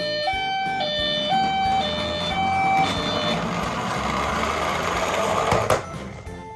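Toy emergency vehicle's electronic two-tone siren, alternating high and low notes about twice a second, stopping about three seconds in. Under it a rushing, rattling noise, typical of a toy car rolling down a plastic slide track, grows louder and cuts off with a click near the end.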